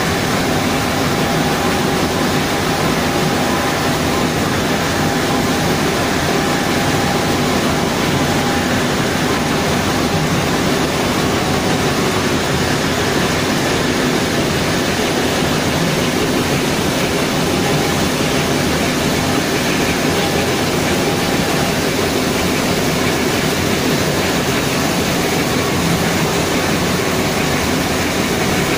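Steady running noise of TSR natural-rubber processing machinery: an even rushing hiss with faint humming tones in it, unchanging throughout.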